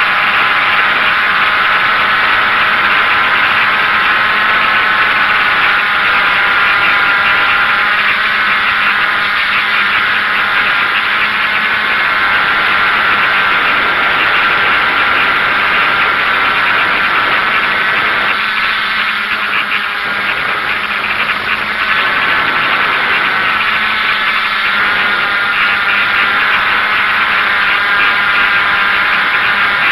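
DJI F550 hexacopter's six electric motors and propellers running in flight, a loud, steady whine of several close pitches heard from the camera on board. It eases off slightly about two-thirds of the way through.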